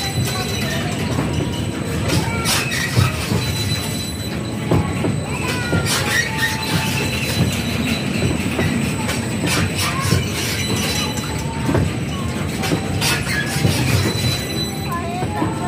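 Boat-shaped cars of a kiddie ride rolling along their wavy steel track: a steady rumble of wheels on rail with irregular knocks and a few short high squeaks.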